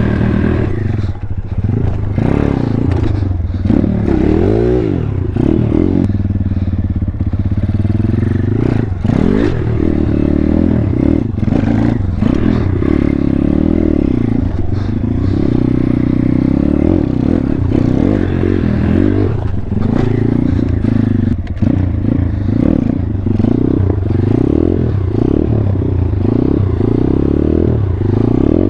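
Single-cylinder four-stroke engine of a 140cc Thumpstar pit bike, ridden and revved up and eased off over and over, with its pitch rising and falling.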